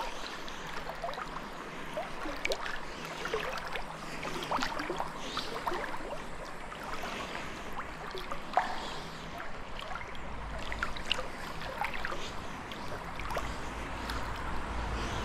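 River water gurgling and trickling, with many small irregular splashes. A low rumble comes in over the last few seconds.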